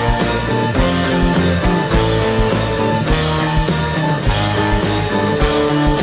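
Live rock band playing: electric guitar and violin with keyboards over a steady drum beat.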